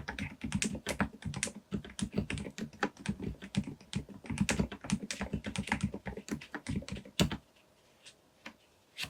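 Fast typing on a Groovestone GV10M-8K mechanical keyboard with low-noise Milky S 38g switches: a dense, even run of keystrokes that stops about seven seconds in with one louder stroke, followed by two faint isolated taps.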